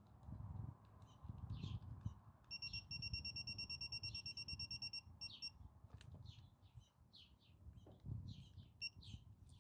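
Torque screwdriver beeping rapidly for about three seconds as the screw reaches its set torque of 14 inch-pounds, then one short beep near the end, with low handling noise from the screwdriver turning.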